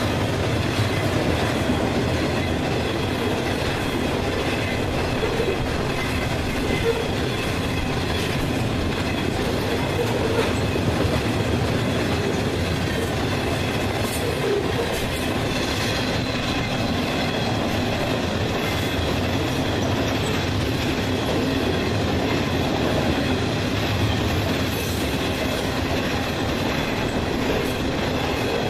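A train rolling past, a steady unbroken noise of wheels on rails with faint high ringing tones from the wheels.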